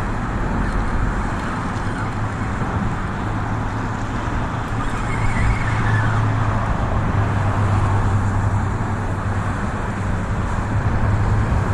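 Steady road traffic on the bridge: a continuous rush of passing vehicles with a low hum that grows louder from about four seconds in.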